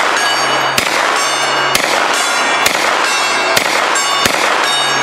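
Hi-Point 995 TS 9mm carbine fired about six times at a steady pace of roughly one shot a second. Each hit keeps a large steel gong ringing between the shots.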